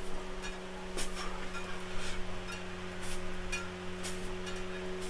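Metal chain of a weighted dip belt clinking during ring dips, a light clink every half second to second, over a steady low hum.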